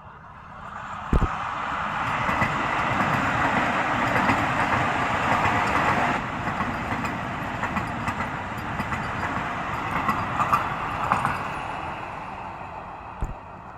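A train passing close by: a steady rumble and rattle of wheels on the rails that builds up over the first two seconds, with a few sharp knocks, easing off near the end.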